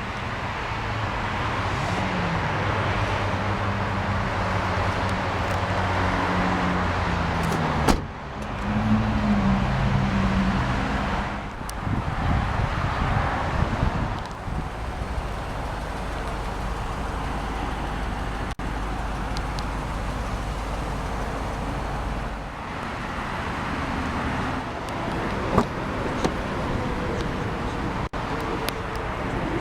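Road traffic: motor vehicles going by with a continuous rumble that swells and fades, and a sharp knock about eight seconds in.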